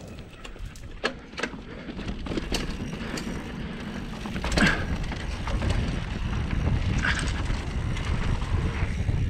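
Mountain bike descending a dirt trail: a steady low rumble of tyres on loose dirt and wind on the camera microphone, with scattered clicks and rattles from the bike over bumps.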